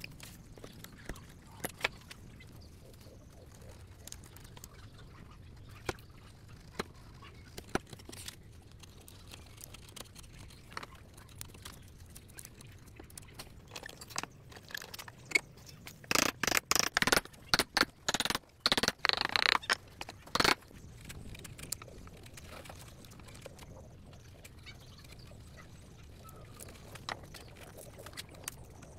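Hand wood chisel cutting and paring wood, with scattered sharp clicks as the edge bites and a dense run of loud rasping cutting strokes a little past the middle.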